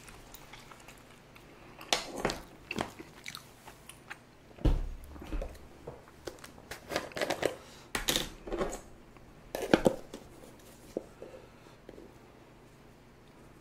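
Close-miked taps, clinks and rattles of a spoon and spice bottle as capsaicin powder is scooped and shaken onto tteokbokki, in a string of short sounds with a dull thud about five seconds in.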